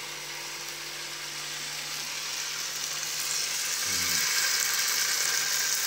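Chicken satay skewers sizzling on a hot round grill pan over a gas burner. The sizzle grows louder about halfway through as more skewers are laid on.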